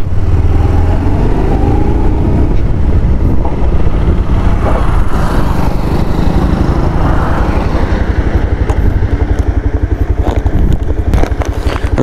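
Bajaj Pulsar NS200's liquid-cooled single-cylinder engine running steadily as the motorcycle is ridden along the road, heard from the rider's seat.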